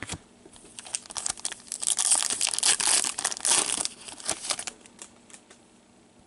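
Plastic trading-card wrapper crinkling and rustling in the hands, densest between about one and a half and four seconds in, then a few light clicks as it is set aside.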